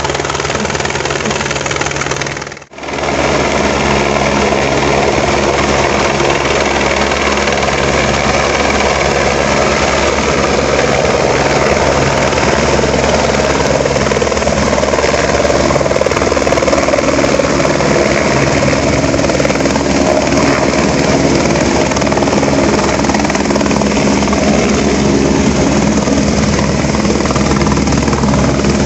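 An Airbus AS350 Écureuil-type light helicopter coming down to land, its rotor and turbine running loud and steady. The sound drops out briefly about three seconds in.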